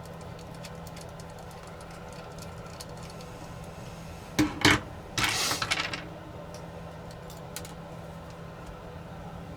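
Small parts and hand tools handled on a workbench: faint light ticks over a steady low hum, two sharp clicks about four and a half seconds in, then a scrape lasting about a second.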